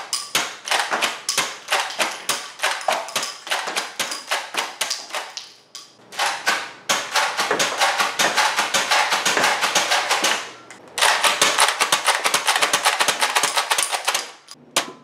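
Lanard Shell Shock X-6 shell-fed spring toy blaster being worked fast, its priming handle and spring action clacking several times a second as it is pumped and fired over and over. There are brief lulls about six and eleven seconds in.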